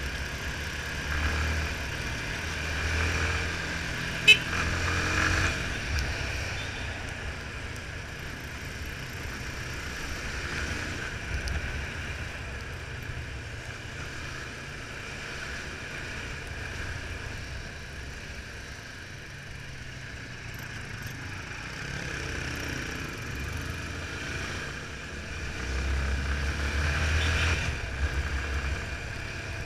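Yamaha Fazer 250's single-cylinder engine running as the motorcycle rides through traffic, rising with acceleration twice, near the start and near the end, over a steady hiss. A single sharp click about four seconds in.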